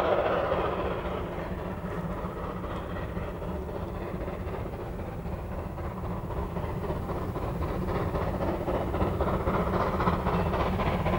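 Narrow-gauge steam locomotive working a train toward the listener, its exhaust beats and running noise growing louder through the second half as it approaches.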